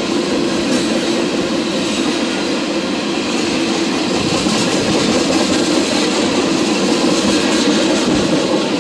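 Freight train of tank cars rolling past at speed: a steady rumble of steel wheels on the rails.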